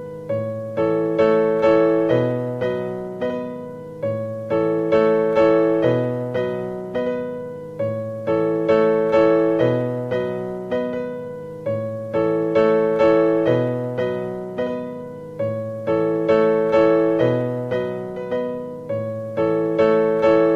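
Background piano music: a gentle phrase of struck notes over low chords, repeating about every four seconds.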